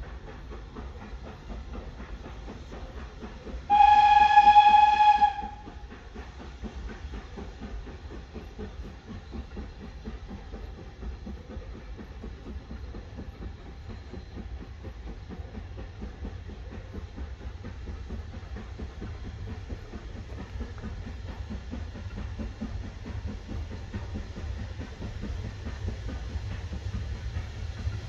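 Steam locomotive whistle blown once, a single clear note lasting about a second and a half, about four seconds in. Under it runs the steady low rumble of the steam train working out of the tunnel, growing slowly louder as it approaches.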